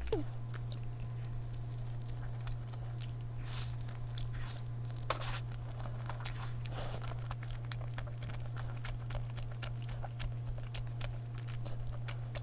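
Close-miked mouth sounds of someone eating a chewy milk-cream donut: small wet clicks and smacks of biting and chewing, over a steady low hum.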